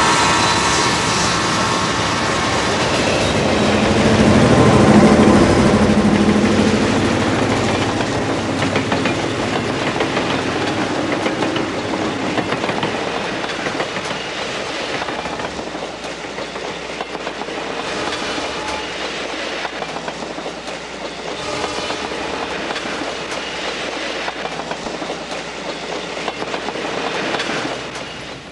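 A train running on rails, loudest about five seconds in and then slowly fading as it moves away.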